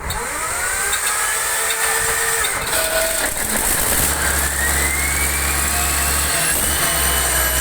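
Yanmar engine starting and running, its pitch rising as it picks up speed, with a second climb in pitch about four seconds in.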